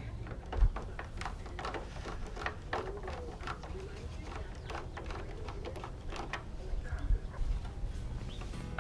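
Scattered clicks, taps and knocks of plastic and metal parts being handled as a headlamp assembly and its wiring are fitted into a truck's front end, with one louder thump under a second in, over a steady low hum.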